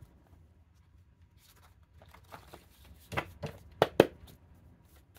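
Cards being handled: quiet paper rustling, then a few sharp card clicks and taps a little past three seconds in and again around four seconds.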